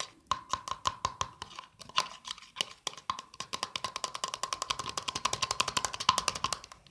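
A utensil stirring liquid soap and sugar in a small container to dissolve the sugar, clicking quickly against the container's side. The clicks are uneven at first, then settle about three seconds in to a steady rhythm of about ten a second.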